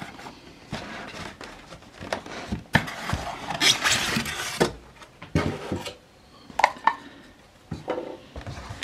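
Polystyrene foam packing insert being pulled out of a cardboard box: irregular rubbing and scraping of foam against cardboard with scattered knocks, busiest from about three to four and a half seconds in, then a few sharp clicks near seven seconds.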